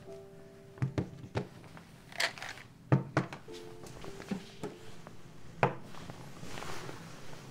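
Objects being set down on a wooden desk: a series of sharp knocks and thunks, one loudest past the middle, with the brush of a hand sliding things into place, over soft melodic background music.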